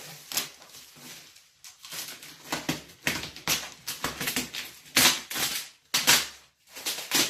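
Nylon plastic wrapping being cut and pulled off a large cardboard box, crinkling and rustling in irregular bursts, loudest around five and six seconds in.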